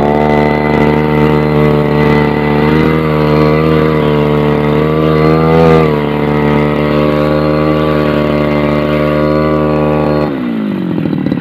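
Two-stroke brush cutter engine revved to high speed while its blade sweeps through grass, the pitch wavering slightly and lifting briefly about six seconds in. About ten seconds in, it drops back toward idle.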